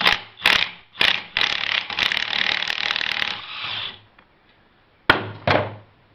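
Impact wrench tightening the castle nut on the pulley shaft of a John Deere 507 Gyramor mower gearbox: three short bursts, then a steady run of about two seconds that fades out. About five seconds in come two sharp knocks.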